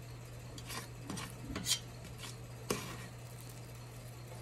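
Small metal cookie scoop scraping and clinking against a stainless steel pot as it digs into the thick no-bake cookie mixture: a handful of short scrapes and clinks in the first three seconds, the loudest just under two seconds in.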